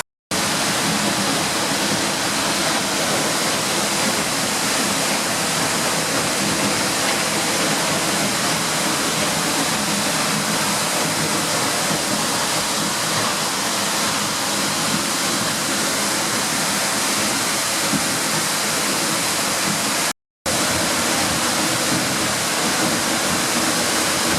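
Seljalandsfoss waterfall: a steady, loud rush of falling water, cut by a brief silent gap about 20 seconds in.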